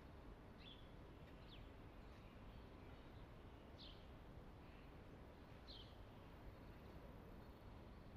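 Near silence: faint room ambience with a few short, high bird chirps, about four of them spaced a second or two apart.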